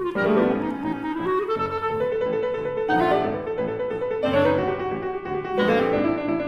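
Clarinet and piano playing a classical duo. Rising, stepping melodic runs, with sharp chord attacks about halfway through, again a little later and near the end.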